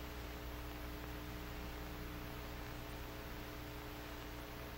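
Steady hiss with a low mains hum, the background noise of an old film soundtrack. No distinct event is heard.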